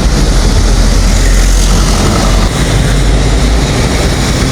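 Loud, steady vehicle noise: engines running and traffic rumbling.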